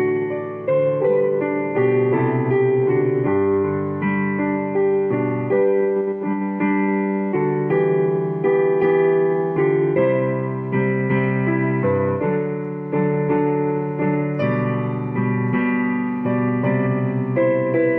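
Piano-sounding keyboard playing a slow instrumental piece in full chords, new notes struck about once a second and left to ring.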